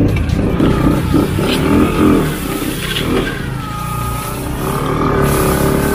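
Motorcycle engine running under load in low gear, the revs rising and falling as the bike forces its way through tall grass.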